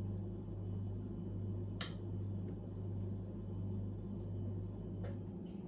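A kitchen knife cutting the edge off a glazed lemon bar, with two short clicks of the blade against the surface beneath, about two seconds in and again near the end. Under it a steady low hum stops about five seconds in.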